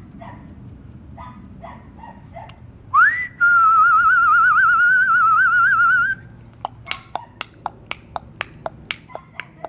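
A person whistling: a quick upward slide, then a steady warbling note held for about three seconds. After it comes a run of sharp clicks, about three a second.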